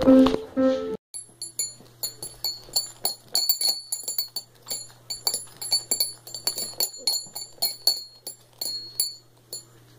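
Brief tail of an ensemble playing, cut off about a second in; then quick, irregular metallic clinks, each with a short bell-like ring, about three or four a second, over a steady low hum.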